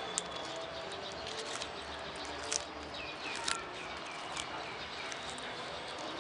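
Tortoise biting and tearing at a zucchini leaf: a few sharp crunchy clicks, the loudest about two and a half and three and a half seconds in. Small birds chirp in the background, with a quick run of short falling chirps midway.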